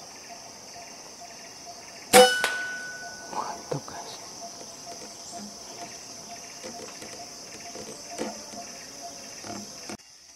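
A single air-rifle shot at a perched green pigeon about two seconds in: a sharp crack with a brief metallic ring, followed by a few softer rustles and knocks in the branches. Steady insect chirring runs underneath.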